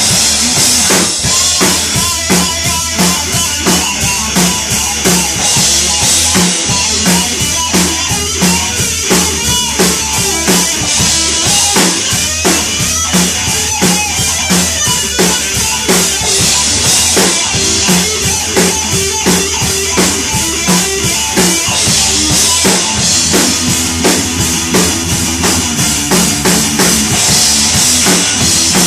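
Live rock band playing a hard-rock number: drum kit keeping a steady beat with bass drum, snare and cymbals under electric guitar and electric bass.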